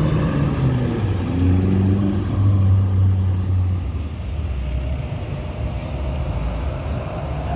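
DAMRI coach bus driving past close by. Its diesel engine makes a deep drone that is loudest a second or two in, then fades into a steady rush of road and tyre noise from passing traffic.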